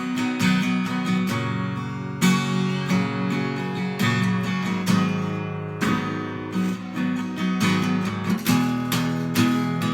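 Acoustic guitar strumming chords, each stroke ringing on into the next, with no singing.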